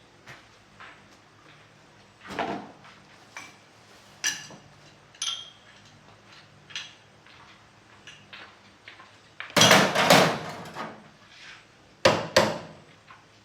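Irregular knocks and taps of hand tools working on wood, a few with a brief metallic ring, with a loud flurry of clattering hits about ten seconds in and two sharp hits near the end.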